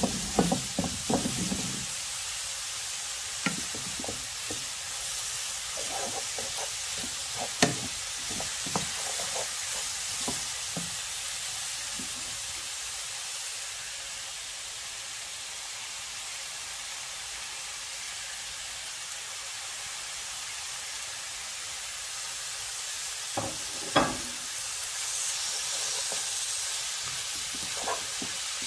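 Shredded cabbage, carrot and mushrooms sizzling steadily in a hot oiled pan as they are stir-fried, with a wooden spatula scraping and knocking against the pan now and then; two knocks stand out, one early and one near the end.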